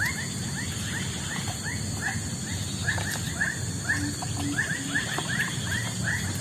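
An animal calling over and over in short high chirps, two or three a second with brief pauses, over a steady high hiss.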